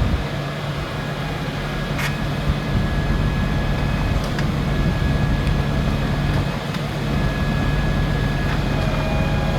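A large engine idling steadily, with a sharp knock about two seconds in.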